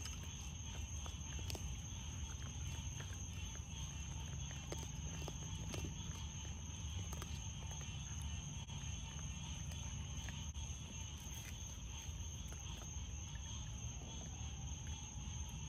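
Young raccoons eating from plates, with scattered small clicks and crunches as they chew and paw at the food. Under it runs a steady high trill of night insects and a low steady hum.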